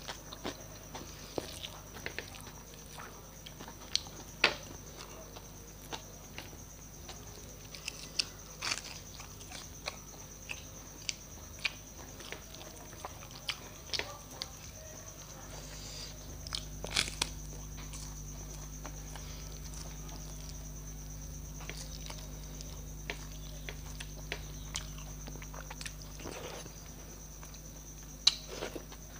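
Close-miked chewing and mouth smacks with scattered sharp clicks, from eating rice mixed by hand with dal and mashed potato. A low steady hum comes up about halfway through and drops away near the end.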